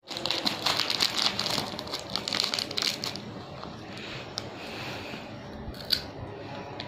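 Crinkling of a plastic snack packet being handled for about three seconds, then quieter rustling with one sharp click near the end.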